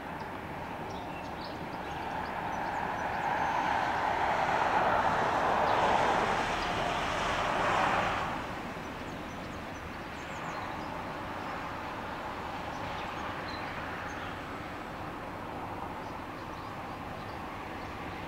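Intercity train hauled by a DB class 101 electric locomotive, heard from across the river as a steady rumble of wheels on rails. It swells to its loudest in the middle, drops off sharply about eight seconds in, then carries on at a lower level.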